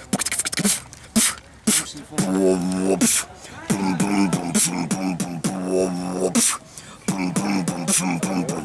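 A young man beatboxing close to the microphone: sharp mouth-made kick and snare hits, a quick roll of clicks near the start, and from about two seconds in a hummed bass tune laid under the beat.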